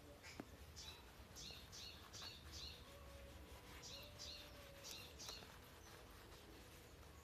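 Faint bird chirps, short high notes in several quick series, over a low steady outdoor background.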